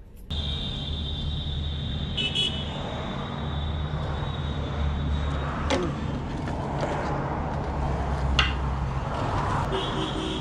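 Steady low mechanical hum, like an idling engine or pump motor, with a faint high steady tone in the first half and a couple of sharp clicks later on.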